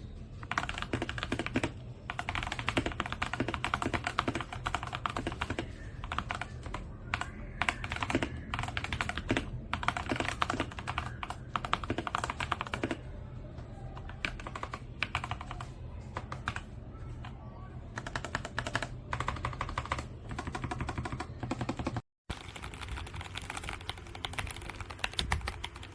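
Typing on a Tecware Phantom+ RGB mechanical keyboard: rapid keystroke clicks in bursts, lighter for a few seconds midway, with a steady low hum underneath. The sound cuts out briefly near the end.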